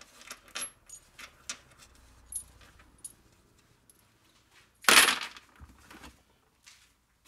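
Small pieces of copper scrap clinking one by one as they are dropped into a plastic crate. About five seconds in, one louder clatter as the crate is picked up and the scrap inside it shifts, followed by a few lighter knocks.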